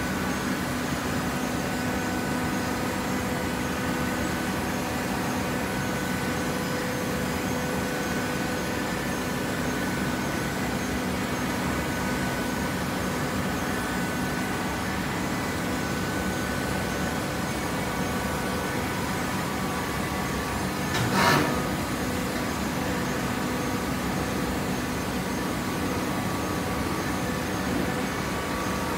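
A horizontal hydraulic baler's power unit running with a steady hum. About two-thirds of the way through there is a single sharp clank.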